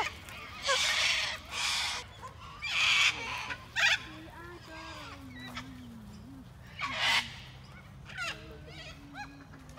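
A group of white cockatoos screeching: a run of harsh, loud screeches in the first four seconds and another about seven seconds in, with softer squawks and chirps between them.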